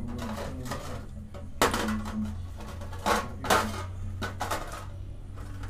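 A few sharp metallic clinks and knocks, the loudest about one and a half, three and three and a half seconds in, over a steady low hum.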